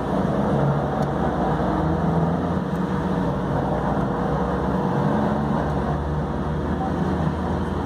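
Light-rail train running, heard from inside the driver's cab: a steady rumble of traction motors and wheels on rails with a faint steady hum.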